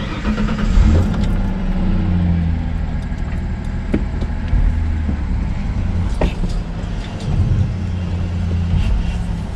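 Vehicle engine running steadily at idle with a low hum, just after starting up, with a couple of short knocks partway through.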